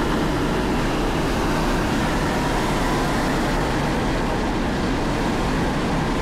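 Whitewater rushing below a spillway: a steady, unbroken rush of water noise.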